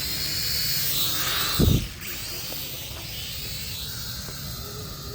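High-pitched whine of small electric remote-control motors over a steady rushing hiss, the pitch bending up and down as the throttle changes. A loud low thump sounds a little before the middle.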